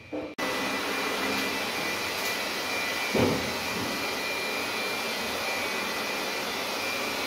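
Steady rushing noise of a running machine that starts abruptly and holds an even level, with a faint thin whine over it. A brief louder low sound stands out a little over three seconds in.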